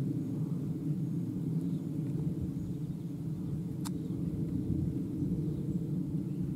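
Jet engines of a Boeing 767 airliner climbing out after takeoff, heard as a low, steady rumble, with one brief click about four seconds in.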